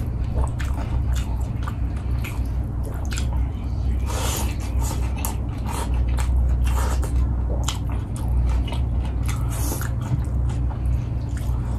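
Close-miked chewing of a man eating by hand: many short, wet clicks and smacks of the mouth, over a steady low hum.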